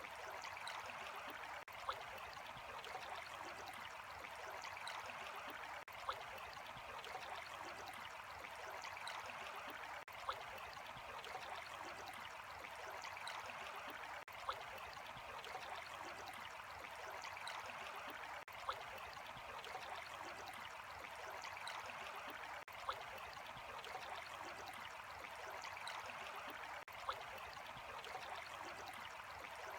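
Steady running water, an even flowing wash like a small stream, with a short sharp click about every four seconds.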